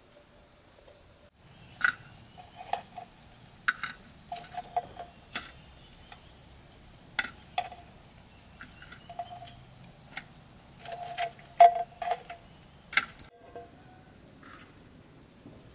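A utensil clinking and scraping against cookware, with about a dozen irregular knocks, several of them giving a short ring.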